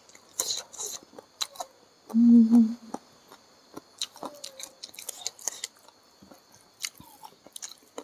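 Close-miked chewing and eating by hand: scattered wet mouth clicks and smacks, with a short closed-mouth hum about two seconds in.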